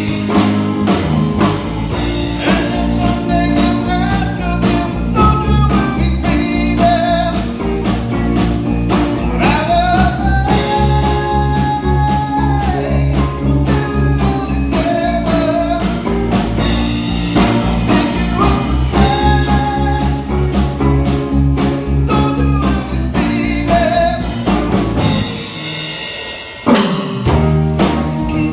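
Live blues trio of electric guitar, bass guitar and drums playing, with a wavering lead melody over the rhythm. Near the end the bass drops away for a moment, then a sharp drum hit brings the band back in.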